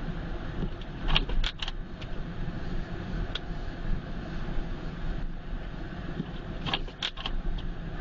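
Car driving on a snowy road, heard inside the cabin: a steady low rumble of engine and tyres. Two short clusters of light clicks and rattles come about a second in and about seven seconds in.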